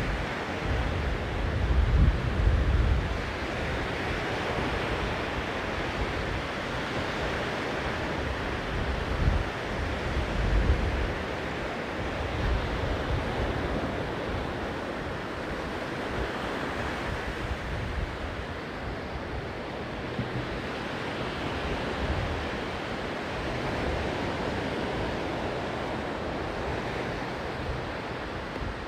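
Sea surf washing onto a sandy beach, a steady rush of waves that swells and eases, with wind buffeting the microphone in low rumbles a couple of seconds in and again about ten seconds in.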